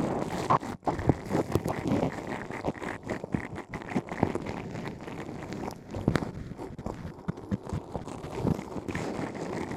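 Close-miked ASMR ear-cleaning sounds in a microphone's artificial ear canal: irregular scratching, rustling and crackling with frequent small clicks and taps.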